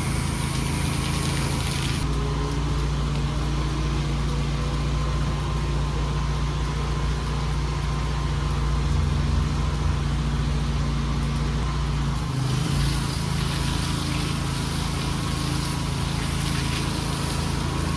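Pressure washer engine running steadily. A hissing water spray is on at first, cuts off about two seconds in, and starts again about twelve seconds in.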